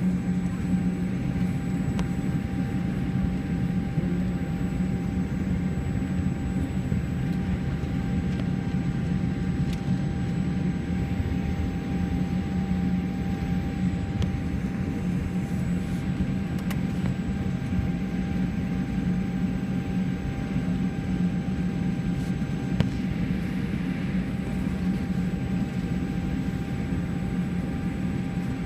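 Steady cabin noise inside a Boeing 787 Dreamliner taxiing with its jet engines at idle: a low, even hum with a thin steady whine above it.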